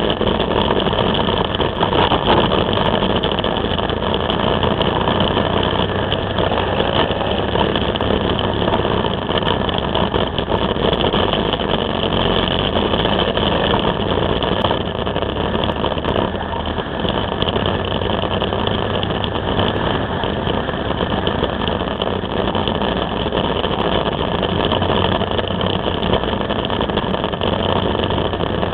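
Can-Am Spyder three-wheeler running steadily at road speed: a constant drone of engine, tyres and wind rushing over the bike-mounted camera, with no change in pace.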